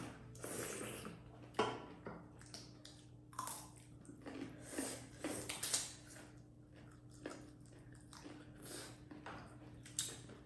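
A person chewing and eating close to the microphone: irregular wet mouth smacks and small clicks, over a faint steady hum.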